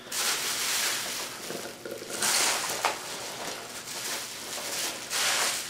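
Hands rummaging through packing peanuts in a cardboard shipping box: a rustling, crinkling noise that swells and fades several times.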